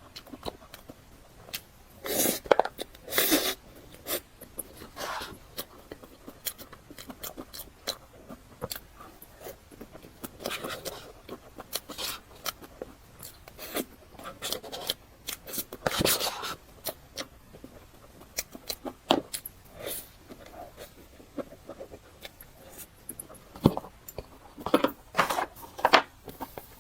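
Close-miked eating sounds while eating a cream dessert: irregular clicks and scrapes with bursts of chewing and mouth sounds.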